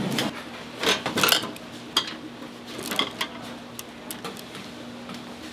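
Stainless-steel pans and utensils clinking and clattering: a handful of sharp metallic clinks in the first three seconds, over a faint steady hum.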